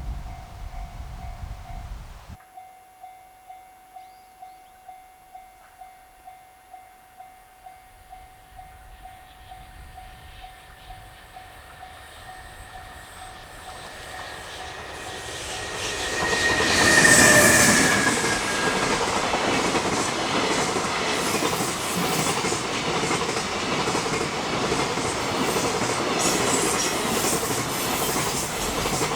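A level-crossing alarm dings about twice a second. An EH500 electric locomotive hauling a container freight train then comes up, gives a short horn blast with a slightly falling pitch as it passes near the middle, and the wagons clatter steadily over the rail joints. A low rumble cuts off suddenly about two seconds in.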